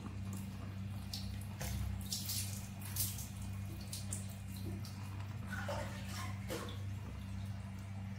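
Water splashing and dripping as a wet baby monkey is rinsed from a plastic scoop, in scattered short splashes, over a steady low hum.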